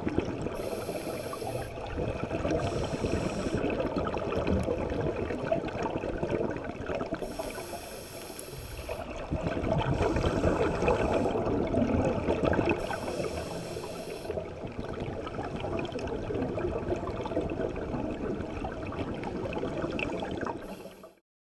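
Underwater sound of scuba breathing through a regulator: several hissing breaths a few seconds apart and bubbling exhalations over a steady wash of water noise. The sound cuts off suddenly near the end.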